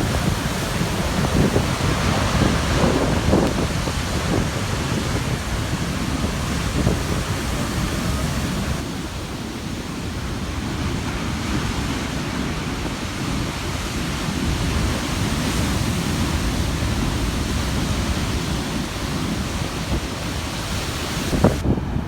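Large ocean waves crashing and churning on a rocky shore at high tide, with wind on the microphone. The surf is loudest over the first nine seconds or so, then eases into a lower, duller wash.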